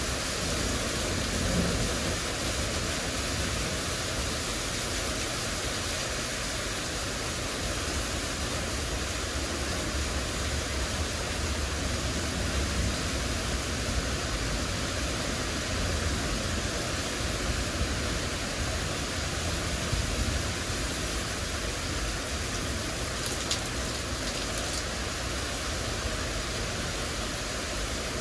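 Heavy downpour of rain, a dense steady hiss, with a low rumble that swells and fades underneath.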